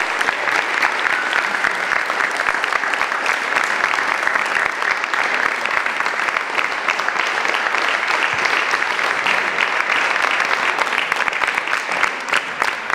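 Audience applauding steadily, thinning to more scattered claps near the end.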